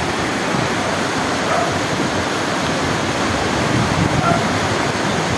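Muddy floodwater of a flash flood rushing through a town's streets: a loud, steady rush of water.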